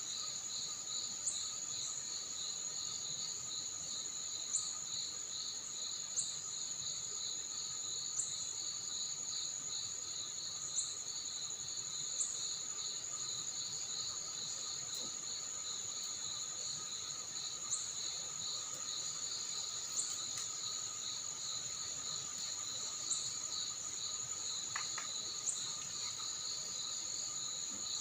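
A night chorus of crickets and other insects: unbroken shrill trills at several pitches, one of them pulsing fast, with short sharp chirps every couple of seconds.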